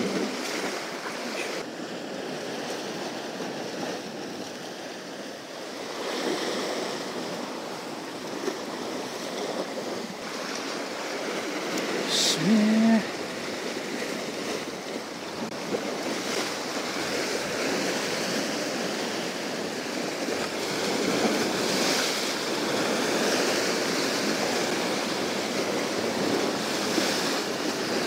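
Sea surf washing and breaking over shoreline rocks, a steady rush that grows stronger toward the end. A short pitched sound stands out near the middle.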